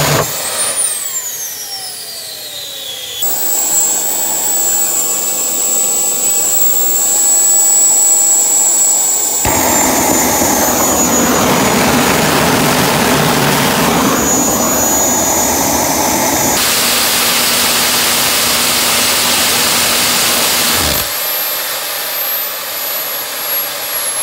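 Small homebuilt jet turbine engine running, heard in several cut-together clips: a high turbine whine over loud rushing exhaust noise. Near the start the whine falls in pitch as the engine winds down. The engine is being run while its afterburner fuelling is tuned, some of it too rich.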